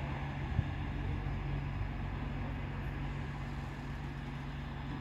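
Diesel passenger train engine running steadily at a distance as the train approaches, a low even drone. A single brief click about half a second in.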